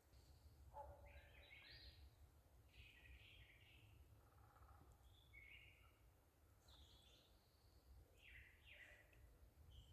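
Faint songbird calls in the early-morning woods: short chirping phrases every second or two, over a steady low rumble.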